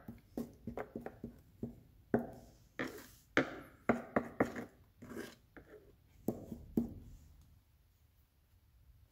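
Irregular light knocks and clicks of parts and tools being handled at a workbench, thinning out after about seven seconds.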